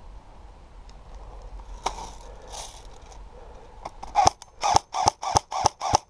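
Airsoft gun firing a quick string of single shots, about eight in two seconds, starting about four seconds in, after one sharp click about two seconds in.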